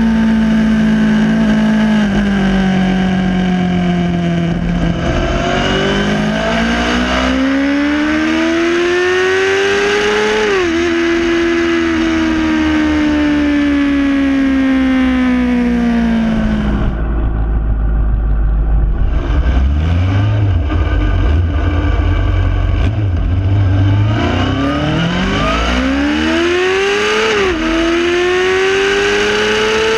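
Honda Hornet 600's inline-four engine through a Mivv Double Gun aftermarket exhaust, heard onboard while riding. The pitch falls off the throttle, climbs under acceleration and drops sharply at upshifts about ten seconds in and again near the end. In the middle it settles into a low, rough run before revving up again.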